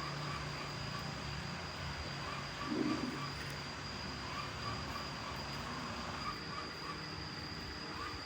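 Insects chirping steadily, a thin high tone with faint repeating pulses over a low hum, with one soft low knock about three seconds in.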